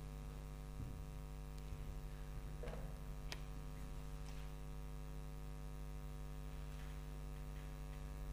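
Steady electrical mains hum, with a few faint scuffs and knocks in the first half, the sharpest a single click about three seconds in.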